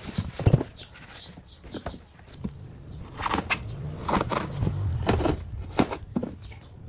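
Scattered knocks, scuffs and rubbing from hands gripping, shifting and pressing on an expanded polystyrene foam box, over a faint low hum.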